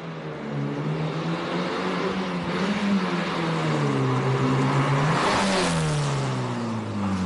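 Engine of a homemade sports car built on a Chevrolet Lacetti, accelerating with its pitch climbing and dropping back in steps. About five and a half seconds in the car passes close by in a rush of noise, and its engine note then falls away.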